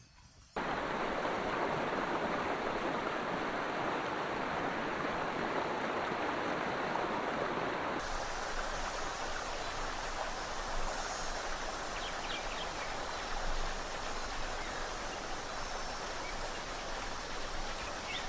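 Running water of a stream, a steady rushing that starts abruptly about half a second in and changes character partway through.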